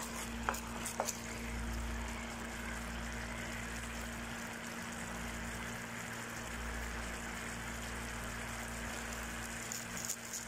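Thick sauce of tomato, chili and sweet soy sauce bubbling in a nonstick frying pan, a steady hiss with a steady low hum underneath. A few light clicks of a wooden spatula against the pan come in the first second.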